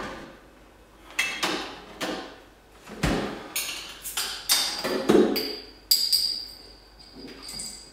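A series of irregular sharp knocks and bangs, about ten over several seconds, some with a short ringing tail. A thin, steady high tone joins from about six seconds in.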